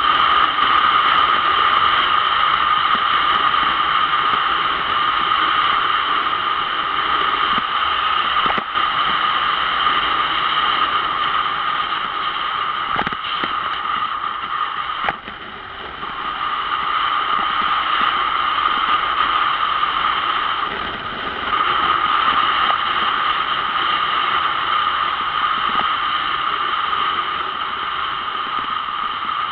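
Wind rushing over the microphone of a camera on a moving motorcycle, with the bike's road and engine noise underneath. The rush eases sharply about halfway through and again briefly a few seconds later, and a couple of faint knocks come just before the first dip.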